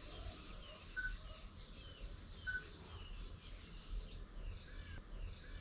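Faint background birdsong: small birds chirping off and on over a low steady hum, with two clearer chirps about one and two and a half seconds in.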